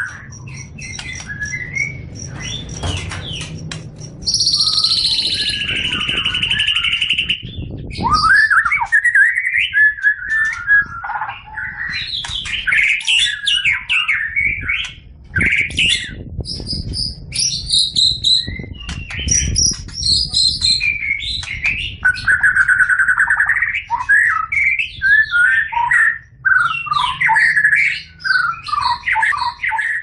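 Cucak ijo (leafbird) singing a long, varied song of quick whistles, chirps and trills that leap up and down in pitch, broken by brief pauses. A drawn-out high whistle comes about four seconds in.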